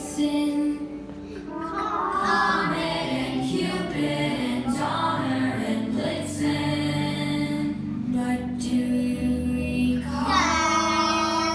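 A group of young children singing a song together over recorded musical accompaniment.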